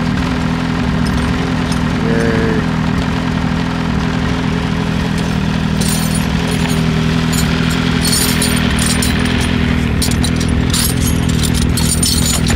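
Snowmobile engine idling steadily. From about halfway on, light metallic clinks of hand wrenches and tools sound over it.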